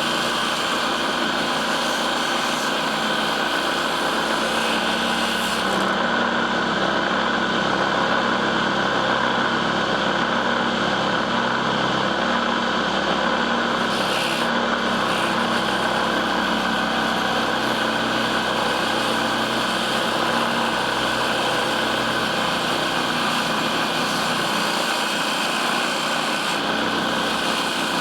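Homemade table saw driven by a small 997 DC motor, running steadily with a constant motor whine and blade hum.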